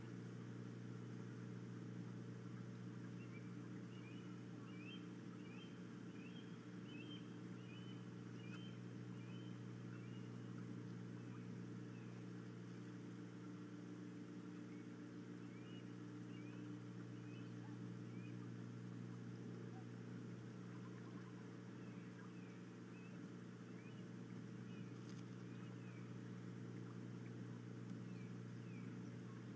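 A steady low mechanical hum with runs of short, quick, high bird chirps over it, three runs of a few seconds each.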